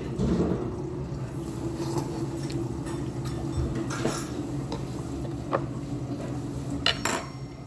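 Metal spoon clinking and scraping against a heavy black pot of hot soup while eating, with a few short sharp clinks of metal utensils on dishes, the sharpest near the end. A steady low hum underneath.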